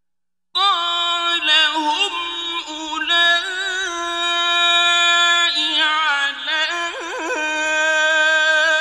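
A man reciting the Quran in the melodic mujawwad style, holding long high notes with rapid wavering ornaments. The voice comes in about half a second in, after silence.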